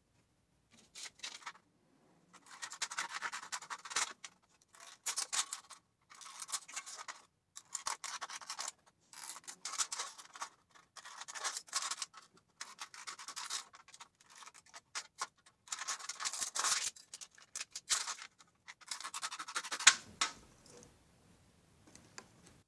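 Aviation tin snips cutting thin beer-can sheet metal: a series of short cutting strokes, each a second or so of scraping noise, with brief pauses between.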